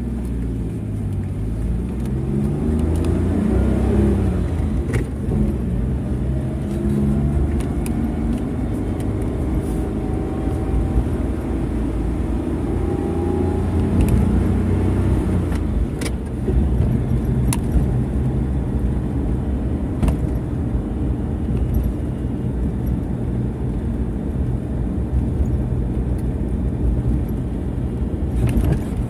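A motor vehicle engine pulling away and accelerating, its pitch rising twice over the first several seconds as it goes up through the gears, then running steadily. A few sharp clicks sound now and then.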